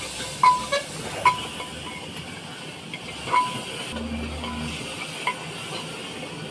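A metal spoon stirring in an aluminium pressure-cooker pot, clinking against the metal about half a dozen times, each strike ringing briefly, the loudest within the first second and a half. Underneath is a steady hiss from the stove.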